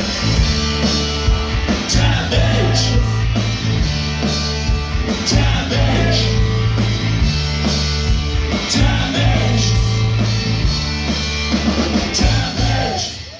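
Post-punk rock band playing live: loud, steady bass line and drums with electric guitar, the sound dropping away just before the end.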